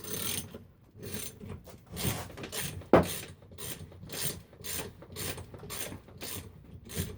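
A wrench turning out the top cap bolt of a Yamaha Virago motorcycle fork, ratcheting in short repeated strokes about three a second, with one sharper click about three seconds in.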